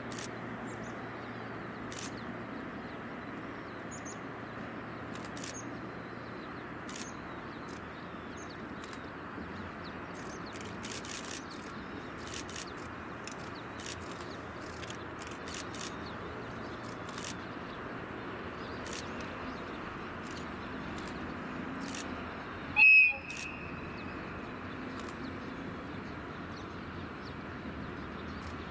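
Outdoor ambience: a steady faint hiss with scattered short bird chirps. One short, sharp, loud high-pitched sound comes about 23 seconds in.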